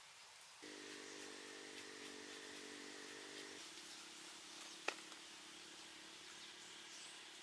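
Faint, steady engine-like drone that comes in suddenly about half a second in and thins to a single low tone after about three seconds, with one sharp click near the five-second mark.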